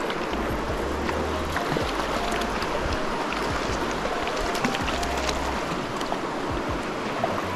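Shallow river running steadily over stones, with background music and its low bass notes under it.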